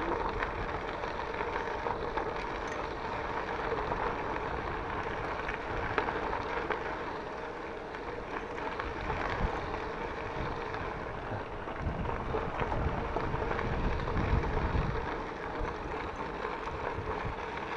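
Mountain bike rolling along a gravel dirt track: steady tyre noise and rattle over the rough surface, with wind on the microphone. The rumble grows a little stronger about twelve to fifteen seconds in.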